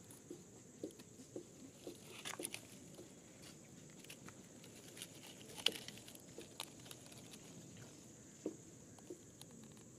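Faint, scattered clicks and snaps of dry sticks and twigs, with a sharper knock a little before the six-second mark, over a faint steady high hiss.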